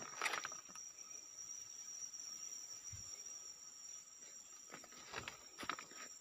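Insects trilling steadily in a high, continuous note. A few footsteps crunch on sawdust and leaf litter near the start and again near the end.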